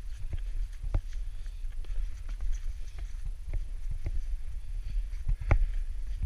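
Footsteps of a hiker in boots on stepping stones and a gravel path, about two steps a second, with a constant low rumble underneath.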